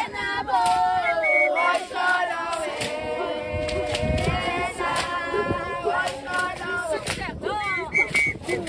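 A group of young women singing a Zulu song together, with sharp percussive beats recurring through the singing.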